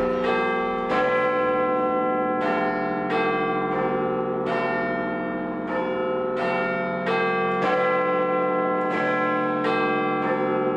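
Bells ringing, a new bell struck roughly every two-thirds of a second at changing pitches, each stroke ringing on and overlapping the next.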